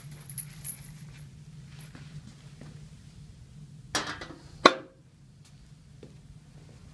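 Weight plates on a loading pin clanking as the loaded pin is set down on a platform scale: a few light clinks early, a short metallic rattle about four seconds in, then one sharp metal clank that rings briefly.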